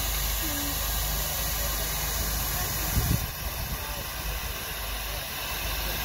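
Steam traction engine hissing steam steadily, with a brief low thump about three seconds in.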